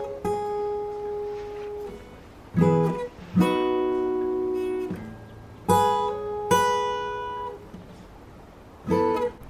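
Background music: acoustic guitar chords struck in pairs about every three seconds, each left to ring and fade.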